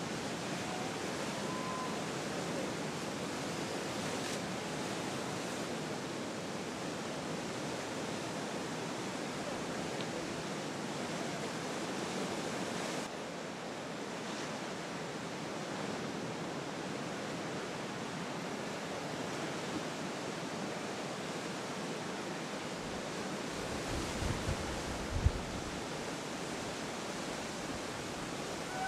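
Steady wash of ocean surf breaking, with a few low thumps of wind buffeting the microphone near the end.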